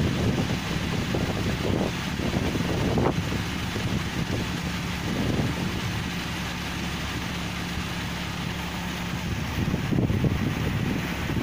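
8070 rice combine harvester running steadily with a steady hum while it unloads grain through its auger into a lorry. Wind buffets the microphone from about ten seconds in.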